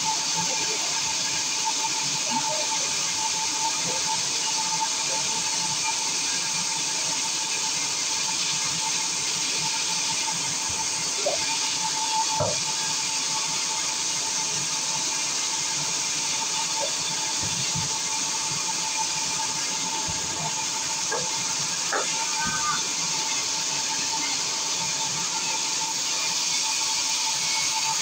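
Large vertical band saw mill running as it cuts lengthwise through a big log: a steady, loud hiss with a constant tone.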